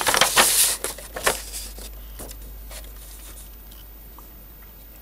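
Paper instruction sheet rustling and crinkling as its pages are handled and turned, in rapid bursts that die away after about a second and a half, leaving a faint steady hiss.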